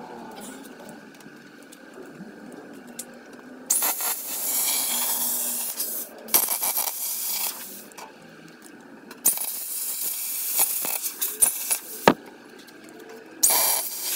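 Electric welding arc crackling and hissing in four bursts of one to two seconds each, tack-welding thin 24-gauge sheet steel, with short quiet gaps between welds.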